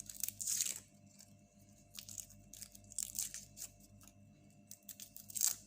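Garlic cloves being peeled by hand: the dry, papery skin tears and crackles in several short bursts.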